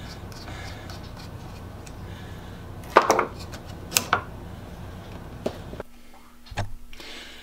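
Sharp metallic clicks and knocks of a plane blade and screwdriver being worked in a wooden sharpening jig. The two loudest clicks come about three and four seconds in, over a steady low hum.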